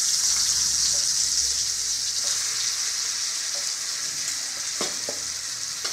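Freshly ground wet masala paste sizzling in hot oil in an aluminium kadhai, a steady hiss that eases slightly as it goes.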